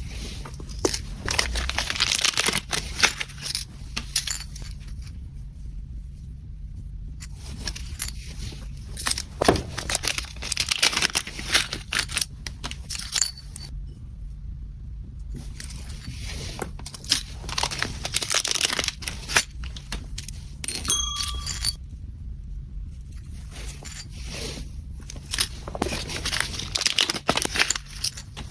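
Packaging being handled, crinkling, rustling and tearing in four bursts of a few seconds each with short pauses between, over a steady low hum.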